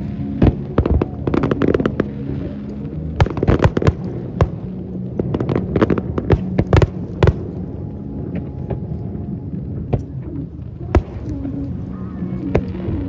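Fireworks shells bursting overhead, loud bangs coming in rapid crackling clusters, then spacing out into a few single booms near the end.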